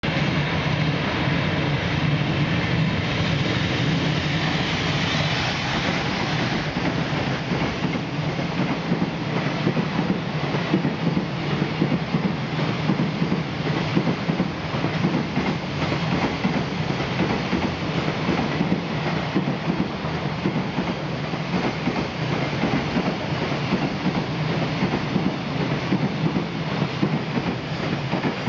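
Freight train hauled by an EF200 electric locomotive passing close by, with a long rake of Koki container flatcars. A steady rumble of the wagons is punctuated by rapid clickety-clack of wheels over the rail joints.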